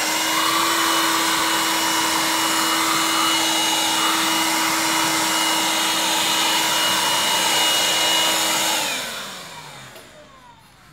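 Vacuum cleaner running steadily with a high motor whine and hiss, then switched off about nine seconds in, its whine falling in pitch as the motor spins down.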